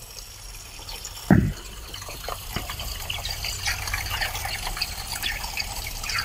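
Water running full blast from an outdoor well spigot and splashing onto grass, a steady hiss that grows slowly louder, with one brief low thud a little over a second in.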